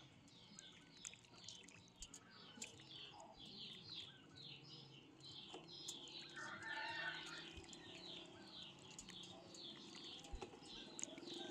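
Faint water lapping and small splashes as hands wash raw chicken pieces in a metal basin of water, over a high chirping that repeats about twice a second; a louder bird call comes about six seconds in.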